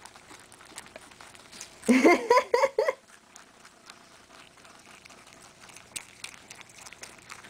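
Rabbit munching fresh parsley: faint, quick crunching and leaf rustling. About two seconds in, a person laughs for about a second, the loudest sound.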